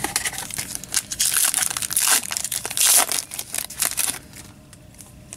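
Foil trading-card pack wrapper crinkling and being torn open by hand, loudest in the middle and stopping about four seconds in.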